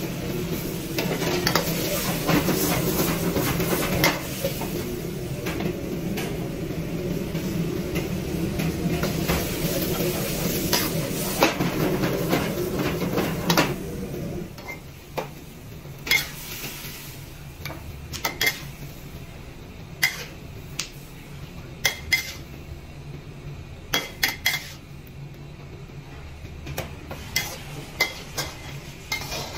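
Stir-frying in a wok over a high-flame wok burner: a steady rush of burner and sizzle for the first half, dropping off about halfway through. After that come repeated sharp clanks of a metal ladle striking and scraping the wok.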